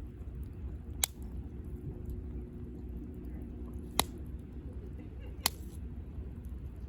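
Wood campfire burning with a low steady rumble, broken by three sharp crackling pops: about a second in, near the middle, and a second and a half later.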